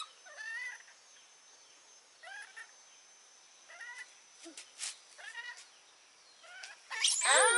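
Baby macaques giving short, high-pitched cries every second or so, then a louder, longer wavering cry near the end.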